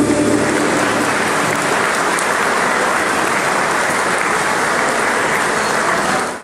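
The last violin note dies away in the first half-second, and an audience then applauds steadily until the sound fades out quickly near the end.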